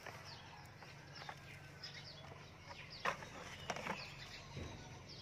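Faint bird calls: scattered short falling chirps, the loudest about three seconds in, over a low steady hum.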